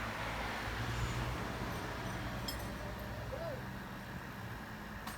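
Steady low hum of a vehicle engine running, with a couple of faint metallic clicks.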